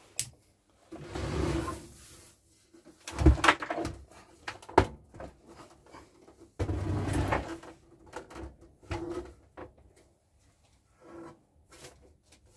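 A metal-cased CRT CCTV monitor being shifted and tipped on a wooden workbench. There is scraping about a second in and again just past the middle, with a few sharp knocks in between.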